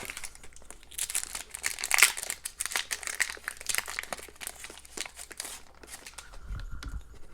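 Foil wrapper of a hockey card pack crinkling and tearing open: a dense run of crackles and rips lasting several seconds.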